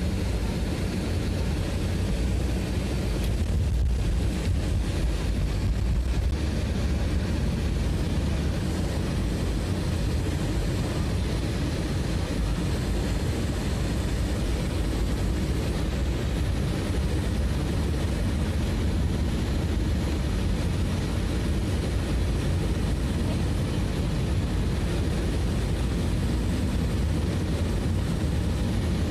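Steady low engine rumble that holds at an even level throughout.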